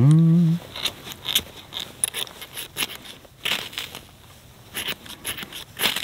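Ferro rod scraped hard with a striker, about ten short rasping strikes at irregular intervals, throwing sparks onto tinder that has not yet caught. A brief hummed voice comes just before the first strike.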